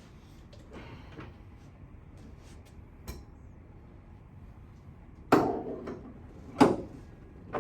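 Two loud, sharp knocks about a second and a half apart, with a faint click a couple of seconds earlier and another knock at the very end, made during a chiropractic adjustment of the patient.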